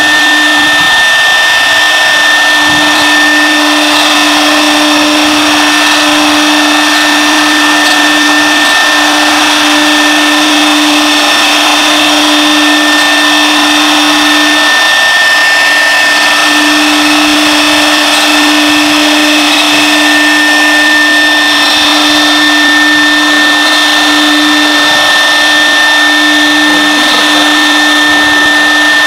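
CNC router spindle running at speed with its bit cutting a wood sheet: loud, steady motor and cutting noise with a high whine. A lower hum comes and goes, dropping out briefly several times.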